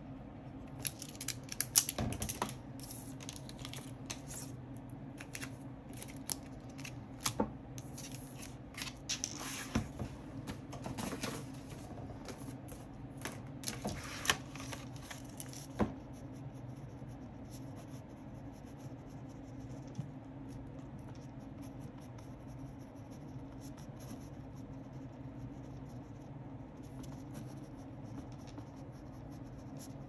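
Hand sounds of annotating a paperback book: a run of sharp clicks, taps and scratchy paper noises for about the first half, then fainter scratching of pen on paper. A steady low hum runs underneath.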